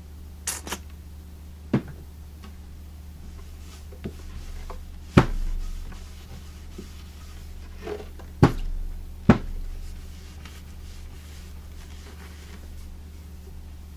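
Wooden radio cabinet knocking and bumping on the bench as it is handled and turned: a few sharp knocks, with two heavier thuds about five and eight and a half seconds in.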